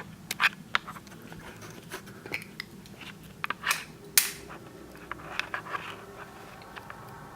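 Irregular sharp clicks, taps and short scrapes, the loudest about half a second in and about four seconds in, over a faint steady low hum.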